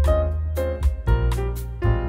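Background music with a bass line and a steady beat.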